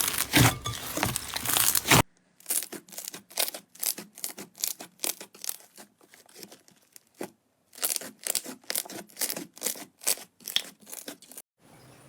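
Slime being squeezed and handled with crisp crackling: a dense run of crackles for about two seconds, then, after a cut, sharp separate crackles and pops several a second, with a short pause in the middle.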